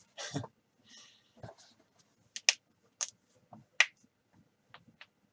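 A few sharp, separate clicks and a brief light rustle from hands handling sealed trading card packs and their box.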